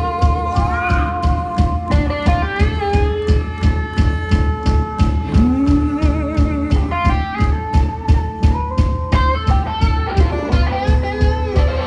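Live blues-rock band playing an instrumental passage: electric guitar holding long notes, one bent upward partway through, over a steady drum beat and bass.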